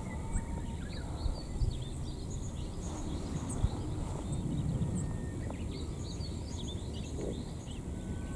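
Small birds chirping and twittering over a steady low rumble of background noise, with a few brief low knocks early on and about a third of the way in.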